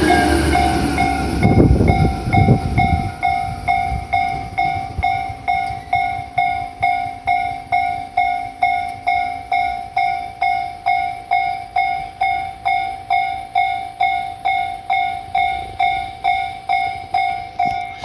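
Japanese railway level-crossing warning bell ringing steadily, about two strikes a second, as the crossing stays closed for one train after another. During the first few seconds the tail of a passing Tokyu 8500 series train rumbles by, then dies away.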